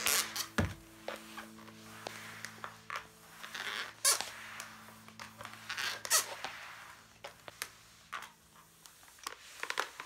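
Flat microfibre mop pushed back and forth over a laminate floor: soft swishing strokes with sharp squeaks and clicks now and then.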